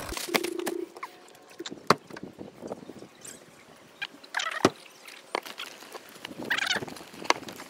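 Crinkling of a plastic bread bag, with a series of sharp clicks and knocks as glass jars and their lids are handled on a table.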